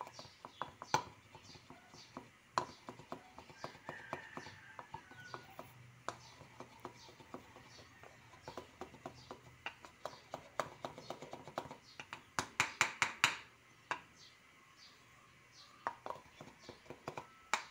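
Pestle tapping and grinding in a small terracotta mortar, crushing fresh catfish pituitary glands into a paste for a spawning injection. Sharp, irregular taps, with a quicker run of louder taps about twelve to thirteen seconds in.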